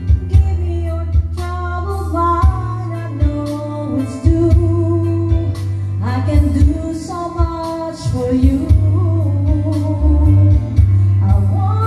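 A woman singing into a corded microphone over a karaoke backing track with a steady bass line and drum beat.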